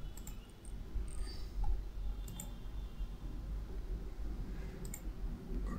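Computer mouse clicking a few times, in small groups a couple of seconds apart, over a steady low hum.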